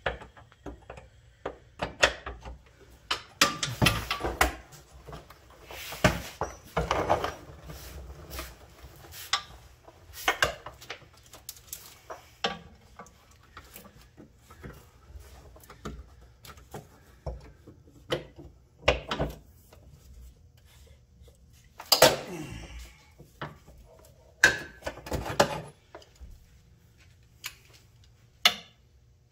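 Socket ratchet and wrench working loose bolts on the underside of a car: irregular metallic clicks, clinks and clanks, with a few short, louder spells of tool noise.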